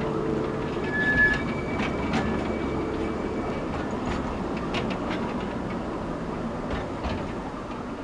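Open passenger cars of a narrow-gauge forest railway rolling past on the track, wheels clicking over the rails, with a brief high wheel squeal about a second in. The sound slowly fades as the train moves away.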